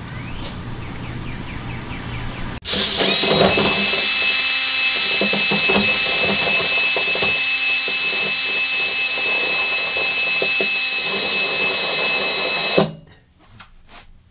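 Cordless drill cutting a 1.5-inch hole through the van floor. It starts suddenly about two and a half seconds in, runs steadily with a high whine for about ten seconds, then stops abruptly, followed by a few faint clicks.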